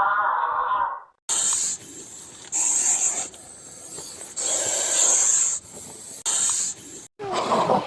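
An animal hissing in four long, airy breaths, after the tail of a wavering pitched call at the start.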